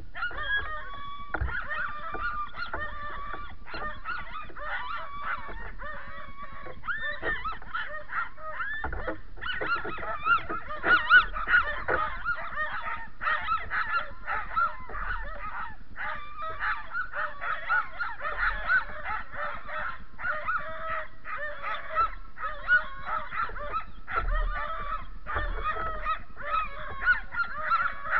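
A harnessed team of sled dogs yelping and barking excitedly in a continuous overlapping chorus, the pre-start clamour of dogs eager to run. It gets louder and busier about nine seconds in.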